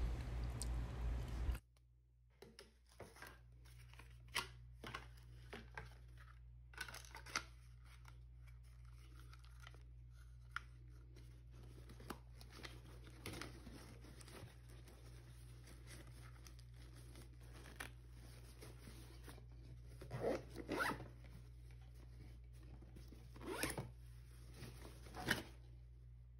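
Zipper and nylon fabric of a Viktos Upscale 2 sling bag being handled: a zipper pulled and cloth rustling, with scattered faint clicks and a few louder rustles near the end, over a steady low hum.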